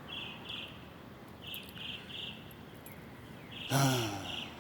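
Crickets chirping in short pulsed groups of two or three, at a high pitch over a faint hiss. A brief louder sound comes about four seconds in.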